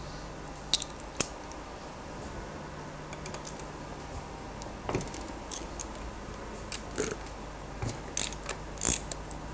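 Socket wrench and metal tools at work on engine bolts: scattered light clicks and short metallic scrapes, busier near the end, as the bolts of the rotary valve cover are undone.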